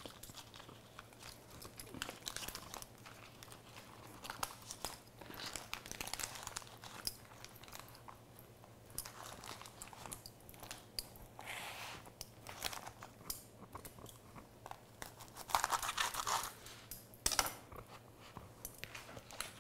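Raw collard green leaves crinkling and rustling in faint, scattered crackles as a vegetable-filled wrap is folded and rolled by hand on a wooden cutting board. Louder crunches come near the end as a knife cuts through the crisp roll.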